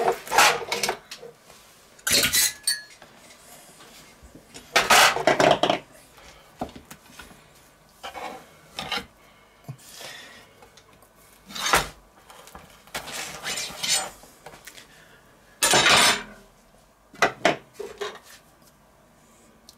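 Metal rotisserie spit and its forks clanking and clinking as the fork screws are undone with pliers and the spit is drawn out of a roast duck, with about six sharp metallic clanks and smaller clicks between them.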